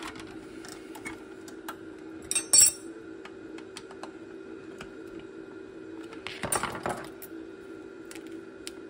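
Small metal parts and tools handled on a workbench: scattered light clicks, a sharp metallic clink about two and a half seconds in, and a longer clattering rattle around six and a half seconds, over a steady hum.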